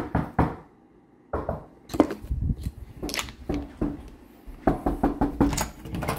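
Irregular footsteps and handling knocks from a handheld camera being carried down a hallway toward a door.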